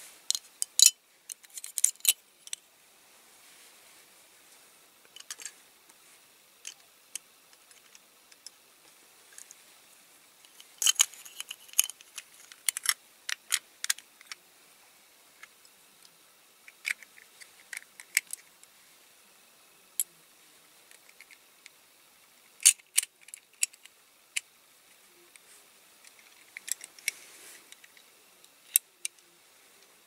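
Small sharp clicks and taps of a toy truck's plastic cab parts and diecast metal chassis being handled and fitted together, coming in scattered clusters with quiet gaps between.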